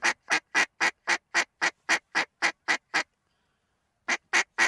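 Duck call blown by a hunter: about a dozen short, even quacks at about four a second, then a pause of about a second and three more quacks near the end.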